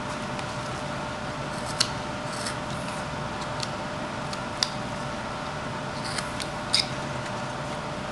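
Carving knife slicing into a small wood block, giving several short, crisp cuts spaced a second or two apart, over a steady background hum.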